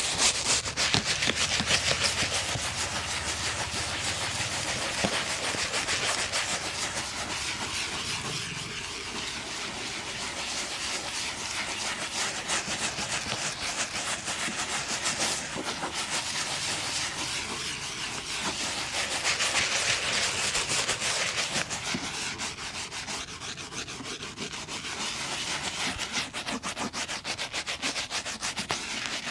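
Rapid back-and-forth rubbing and brushing on a leather shoe, a continuous scratchy stroking that swells and eases every several seconds.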